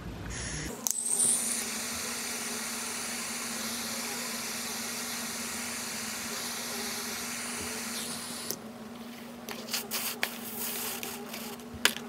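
Butane soldering iron with a hot-air tip hissing steadily as it blows hot gas over a heat-shrink crimp connector to shrink the sleeve. The hiss starts abruptly about a second in and stops after about eight seconds, followed by a few light clicks and knocks as the tool is handled.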